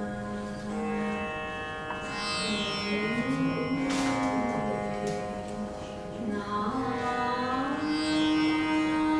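Veena playing a slow Indian classical passage: a steady ringing drone under a melody that slides between notes, with a sharp pluck about four seconds in.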